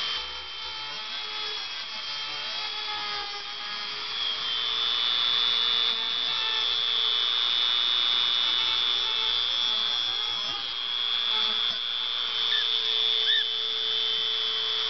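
Dremel rotary tool running at high speed with a steady high-pitched whine, its grinding bit held against a cockatiel's beak to trim it.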